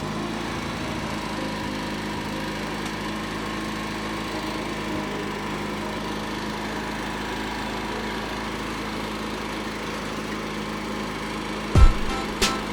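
Craftsman riding lawn mower's engine running steadily at a constant speed just after being started. A few sharp knocks come near the end.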